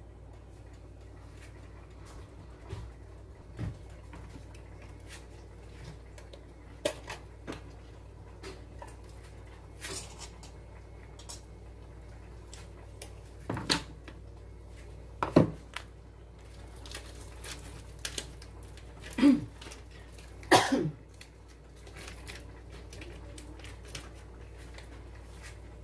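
Kitchen handling sounds: scattered light clicks and rustles of foil packets and utensils by a frying pan, with a few louder knocks in the second half over a low steady hum.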